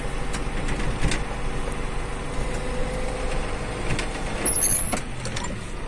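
Tractor engine running steadily, heard from inside the cab, with a few light knocks.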